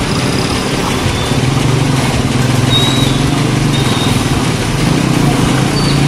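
Motorcycle engine running steadily at low revs as the bike is edged through deep floodwater, the drone growing a little stronger about a second in.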